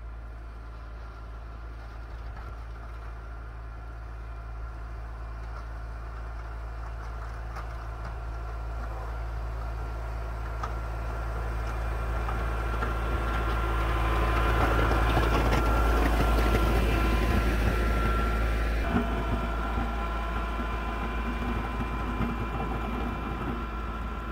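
A vehicle engine running steadily, growing louder toward the middle and dropping off abruptly about 19 seconds in.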